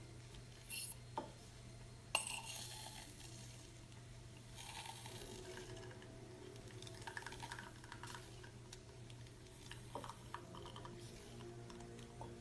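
Faint clinks and taps of small hard objects being handled, over a low steady hum.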